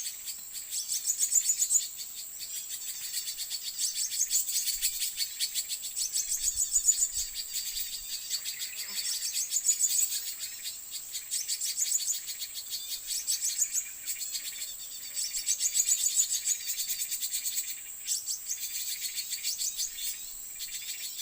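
White-eyes (pleci) chattering in quick, high twittering chirps, rising and falling in bursts, over a steady high insect buzz.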